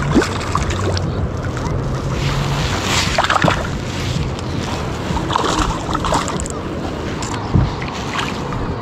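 A hooked fish splashing and thrashing at the water surface beside a kayak while it is reeled in, with wind buffeting the microphone. A single low thump comes near the end.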